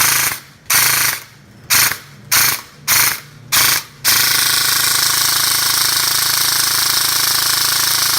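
CNC M4 airsoft BB rifle firing: six short bursts of rapid automatic fire, then one long continuous burst from about four seconds in that runs on past the end.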